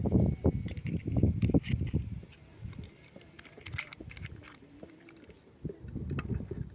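Handling noise from unboxing: rustling packaging and small plastic pieces clicking together. It is busy at first, goes quiet in the middle and picks up again near the end.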